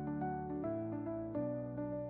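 Background music: gentle keyboard chords changing every half second or so.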